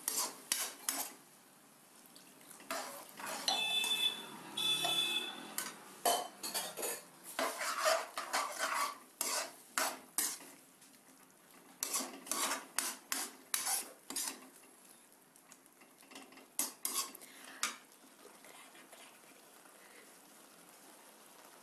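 Metal ladle scraping and clinking against a metal kadai as a wet tomato-onion gravy is stirred, in irregular strokes with short pauses. A short ringing tone sounds twice about four seconds in, and the strokes grow faint near the end.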